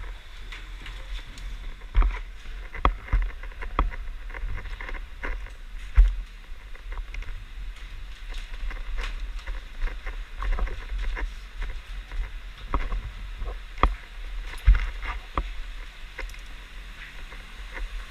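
Scattered sharp knocks and clicks at irregular intervals over a steady low rumble: handling and movement noise from a player carrying gear.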